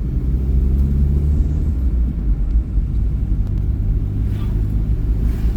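A vehicle driving along the road: steady engine and road rumble, deep and constant.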